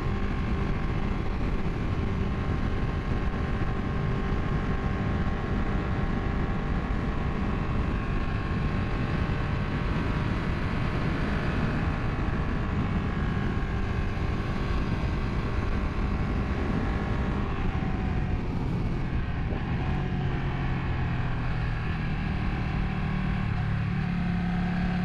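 Ducati 959 Panigale's L-twin engine running hard at road speed under heavy wind rush on the camera. The engine note changes about two-thirds of the way through, and a deeper low drone builds near the end.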